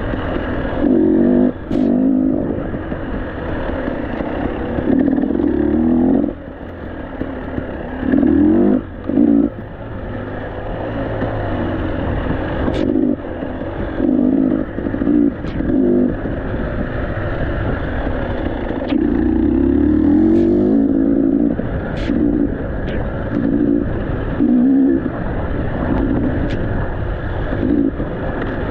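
KTM 300 two-stroke enduro motorcycle engine revving in repeated bursts on and off the throttle, with scattered sharp clicks and knocks.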